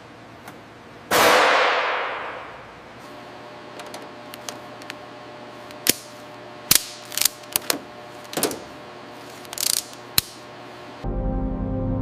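Mechanical work noises: a loud hissing burst about a second in that fades away over a second or two, then scattered sharp metallic clicks and knocks. Background music comes in near the end.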